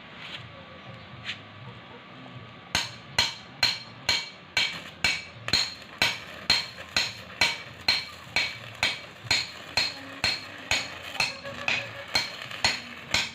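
A hammer striking metal in a steady rhythm of about two blows a second, starting a little under three seconds in.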